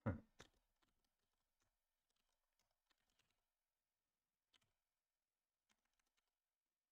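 A low thump right at the start, a sharper click just after it, then sparse, faint computer keyboard keystrokes as code is typed.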